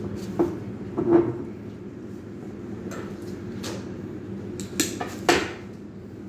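A few sharp clinks and knocks as flower stems and hands bump against a glass vase on a stone counter, five or so in all, with the last two near the end the sharpest. A steady low hum runs underneath.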